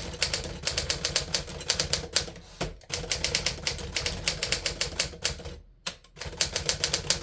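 Smith Corona Silent Super portable manual typewriter being typed on at a steady pace, keystrokes clacking several times a second, with a brief pause about three-quarters of the way through before a last short run of keystrokes.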